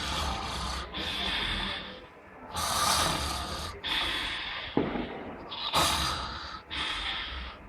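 A man snoring badly with rasping snorts: about three breaths, each heard as two noisy bursts in quick succession, with short lulls between.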